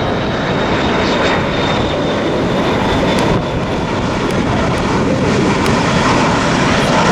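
Jet airliner's engines passing close by: a loud, steady rush of jet noise with a thin high whine that drifts slowly down in pitch.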